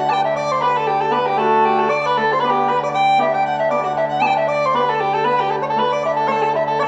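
Uilleann pipes playing a quick-moving traditional tune: the chanter melody changes note rapidly over the steady hum of the drones.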